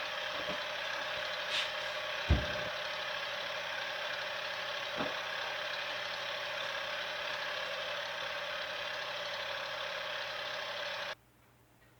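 Electric ice cream maker's motor churning with a steady hum, with one low knock a couple of seconds in. It cuts off suddenly near the end.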